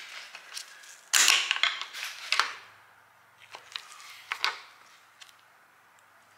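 Steel screwdriver prying and scraping among the valve springs and retainers of a Ford flathead V8 block: a loud metal scrape and creak about a second in, then a few sharp metallic clicks.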